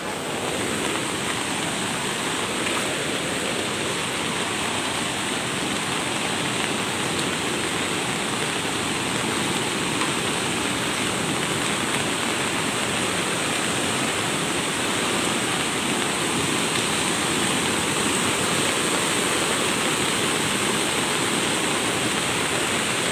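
Floodwater rushing past in a loud, steady roar: a river swollen by heavy rain.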